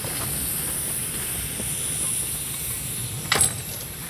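The 1924 Wee Georgie Wood narrow-gauge steam locomotive moving slowly with its carriage: a steady steam hiss over a low running rumble. There is one brief, loud, sharp sound about three seconds in.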